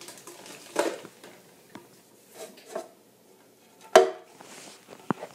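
A clear plastic tub being handled on a countertop: a few light clicks and rustles, then a sharp knock about four seconds in as it is gripped and lifted, followed by a short scraping hiss.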